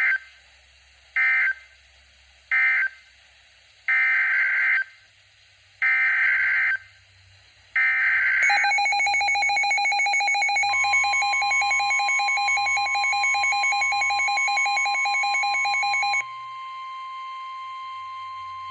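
NOAA Weather Radio SAME data bursts: three short end-of-message bursts close the previous warning, then three longer header bursts open a new tornado warning. A rapid electronic beeping alarm follows, with the steady 1050 Hz warning alarm tone starting under it. The beeping cuts off about 16 seconds in and the steady tone carries on to near the end.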